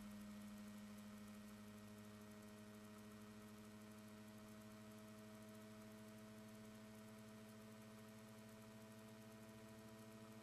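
Faint steady hum of a running Romeruk-style generator rig, a magnet rotor spinning past coils: one low note near 200 Hz with fainter higher overtones above it.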